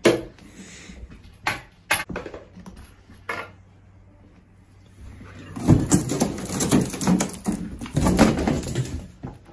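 A few sharp knocks, then from about halfway through several seconds of loud scuffling and scraping as raccoons scramble over cardboard and a concrete floor.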